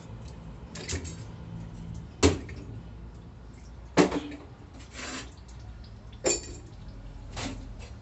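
Steel automatic-transmission parts (drums, gears, sprag) being handled and set down on a steel workbench: about five sharp metallic knocks and clinks, the loudest about two and four seconds in, one with a short ring, over a low steady hum.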